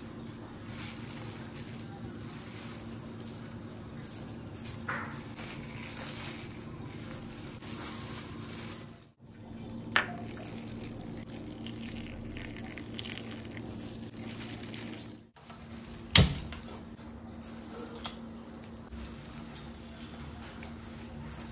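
Kitchen cooking sounds over a steady low hum, broken by two brief drop-outs. There is a sharp click about ten seconds in and a louder knock about six seconds later, with water heating in a pan near the end.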